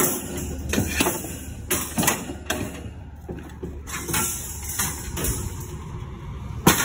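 Chrome wire shelving rack clanking and rattling against the trailer bed and other scrap metal as it is handled and pushed into place. The sharp metal clanks come every second or so, the loudest right at the start and near the end.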